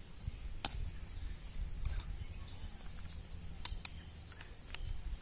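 Sharp metallic clicks and faint ticks as a black oil ring is worked by hand into the lower groove of a Sifang S195 engine piston, over a low steady hum. The loudest clicks come about a second in and as a quick pair a little past the middle.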